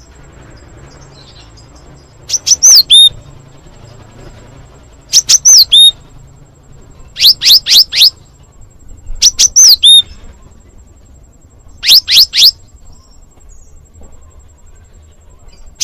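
Great tit (glatik batu) calling its 'wucit wucit' phrase, five times at about two-second intervals. Each phrase is a quick run of very high, sharp notes ending in a short falling whistle.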